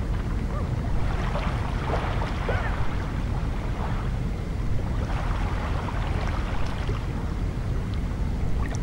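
Sea water lapping gently over a pebble shore, its rustle swelling up twice, over a steady low rumble.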